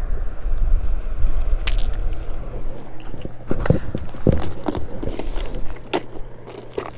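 Clicks and knocks of a clear plastic tackle box being handled, its latches snapped open and its lid lifted. Under them is a low rumble that fades after the first few seconds, and a steady low hum.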